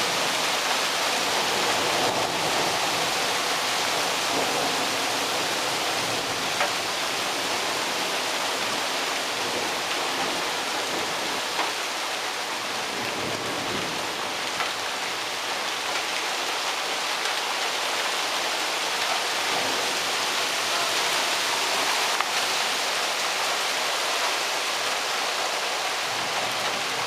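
Thunderstorm downpour: heavy rain falling steadily as an even hiss, with a few sharp taps standing out.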